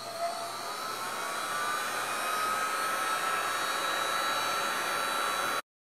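Heat gun blowing hot air over encaustic wax: a steady rush of air with a faint motor whine that climbs a little in pitch and grows louder over the first couple of seconds as it spins up, then cuts off suddenly near the end.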